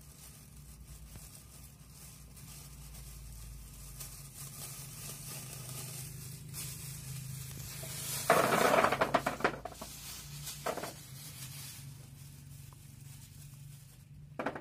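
A plastic bag rustles as it is opened, then about eight seconds in a bagful of hard dried yogurt balls (qurut) pours into a plastic basin: a loud clatter of many quick knocks lasting about a second, a smaller rattle after it, and one more knock near the end.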